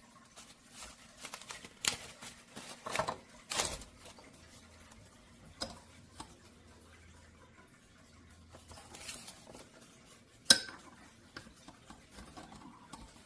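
Small clicks, knocks and clatter of a reusable coffee filter pod and its parts being handled while coffee is prepared. There are a few sharper knocks in the first four seconds and one loud one about ten and a half seconds in.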